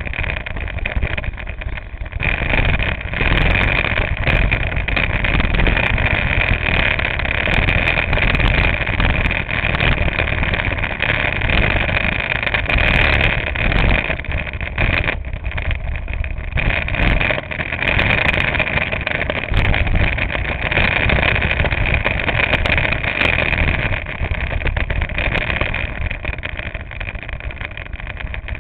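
Go-kart engine running at speed, heard from on the kart along with tyre and wind noise, its level rising and falling through the corners. It quietens near the end as the kart slows.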